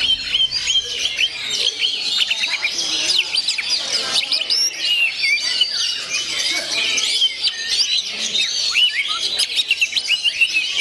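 Songbird singing with dense, rapid chirps and whistles that overlap and run on without a break, most likely oriental magpie-robin (kacer) song.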